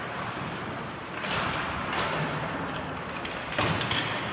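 Ice-hockey play sounds in an echoing rink: sharp knocks and thuds of stick, puck and boards. The loudest cluster of knocks comes near the end, over a steady hum of arena noise.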